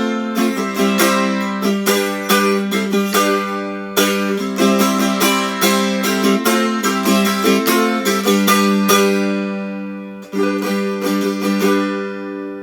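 American tiple strung with eight strings in ukulele tuning (G, C, E, A), played as a quick run of picked notes and chords, ending with a last chord near the end that rings and fades. The strings are freshly changed, so the tuning is still settling.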